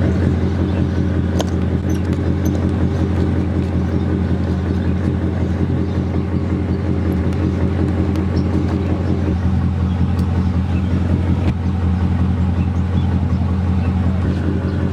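Mercedes E55 AMG's V8 engine running steadily at low revs, with no rise or fall in pitch. A junkyard coil pack has just replaced a cracked one on cylinder 4, and the engine is running without the misfire it had before.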